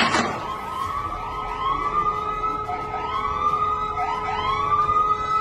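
A siren wailing in repeated rising whoops, roughly one a second, over a steady held tone. A sudden sharp crack sounds right at the start.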